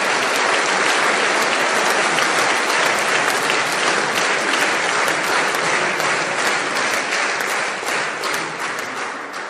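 Large audience applauding: many hands clapping in a dense, steady patter that thins and dies away near the end.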